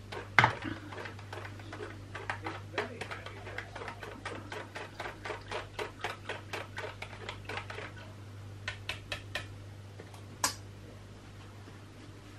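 A sharp click, then a run of light clicks about four a second for several seconds that thins out and stops, a few more after a pause, and one last sharp click near the end, over a steady low hum.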